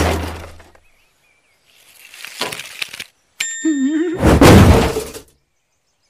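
Cartoon crash sound effects of a toy wagon and a cooler: a loud crash fading out, a stretch of clattering, a short wavering yelp, then a second loud crash as the cooler comes down onto the wagon.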